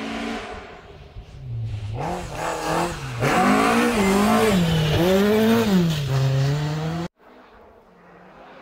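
Rally car coming closer at speed on a gravel stage, its engine revving hard, with the pitch rising and falling several times as the throttle comes on and off. It grows louder until it cuts off suddenly about seven seconds in.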